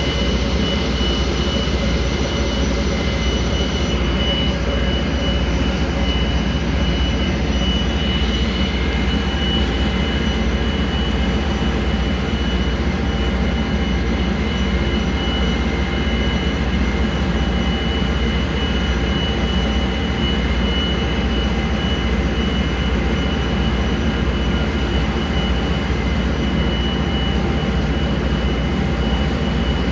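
Barge engine running steadily underway: a constant low drone with a thin, steady high whine above it.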